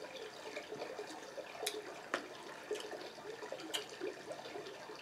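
Crab legs being picked apart by hand: soft, wet shell-and-meat handling noises with a few sharp snaps of shell.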